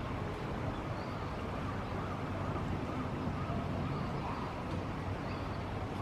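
Steady, even low background rumble, the hum of distant traffic, with no distinct events.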